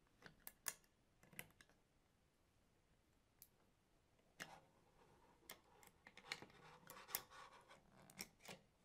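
Faint, scattered clicks and taps of a small wrench and Allen key working the nut of a V-track wheel on a 3D printer's build-plate carriage, as the wheel is tightened. The clicks bunch together about halfway through and again near the end.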